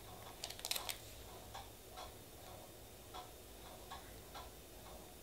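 Faint clicks and light taps from nail stamping tools being handled: a quick cluster of clicks about half a second in, then soft, irregularly spaced ticks.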